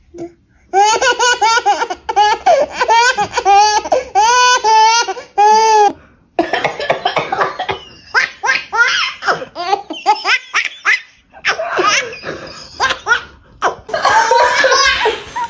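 A baby belly-laughing hard: first a run of high-pitched, drawn-out squealing laughs, then, after a short breath, a long stretch of quick, breathy laugh bursts.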